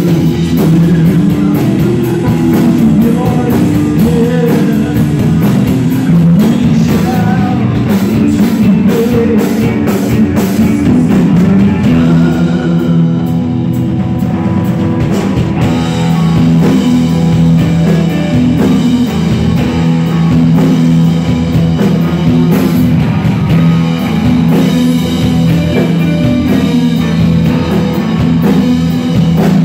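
Rock band playing live and loud: electric guitars and a drum kit, with a sung vocal.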